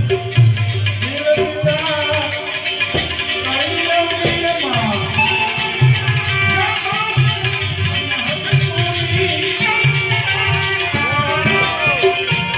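Devotional bhajan music: a hand drum strikes a steady beat under a held drone, with a shaker-like rattle and a melody line that glides and bends in pitch.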